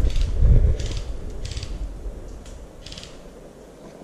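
Footsteps crunching on dry forest floor litter and gear rustling as an airsoft player moves. Heavy low thumps of handling noise come through in the first second, then a few short, separate crunches, with the sound getting quieter toward the end.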